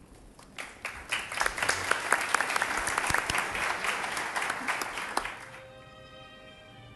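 Audience applauding, building up about half a second in and dying away after about five seconds. Near the end, soft music with a held chord begins.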